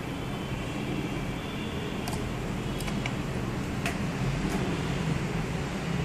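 Small unipolar stepper motor running at low speed, a steady low hum, with a few faint scattered clicks.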